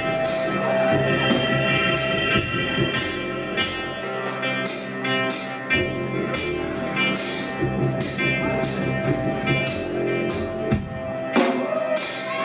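Live band playing an instrumental passage: a drum kit keeping a steady beat of regular hits over sustained guitar and bass notes, with no singing.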